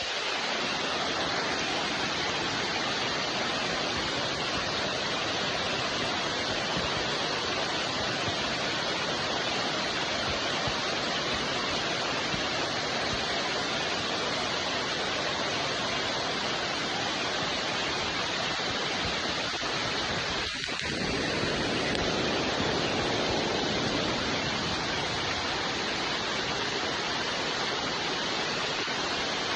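Steady rain falling, an even, unbroken hiss with a brief dip about two-thirds of the way through.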